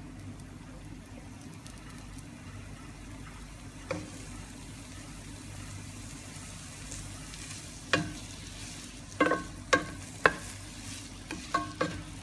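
Finely chopped red onion frying in a little oil in a nonstick pan, a steady sizzle of onions just beginning to soften. From about eight seconds in, a wooden spatula stirring them knocks and scrapes against the pan several times.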